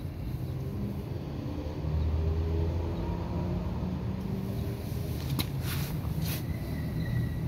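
A low, steady motor-vehicle engine hum whose pitch shifts slightly. Two sharp clicks fall a little after the middle.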